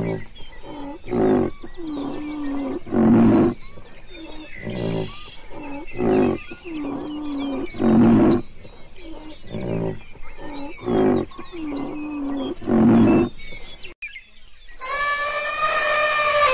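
A rhinoceros giving a string of deep grunting calls, one every second or two. Near the end an elephant trumpets in one long held call.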